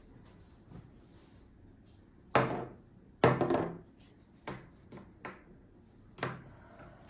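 Dishes and cutlery being set down and handled on a table: a series of clinks and knocks, the two loudest close together, then several lighter taps.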